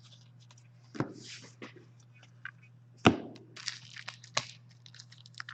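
Hockey trading cards and their foil pack wrappers being handled: light rustling and small clicks, with two sharp taps, one about a second in and the loudest about three seconds in, over a low steady hum.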